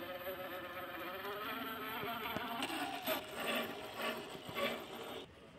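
Traxxas TRX-4 Sport RC crawler's electric motor and geared drivetrain whining, the pitch shifting up and down with the throttle. The whine drops away briefly near the end.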